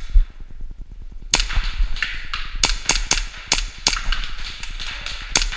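Airsoft guns firing about eight sharp single shots at irregular intervals, starting about a second and a half in. A dull thump comes right at the start.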